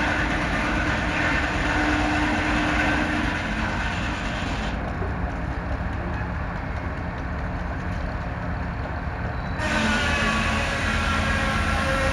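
A heavy engine running steadily, with a constant low rumble; the sound turns muffled for about five seconds in the middle.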